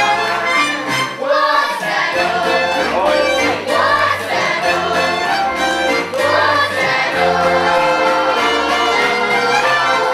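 Musical-theatre number: a group of voices singing together over instrumental accompaniment with a bass line that moves from note to note.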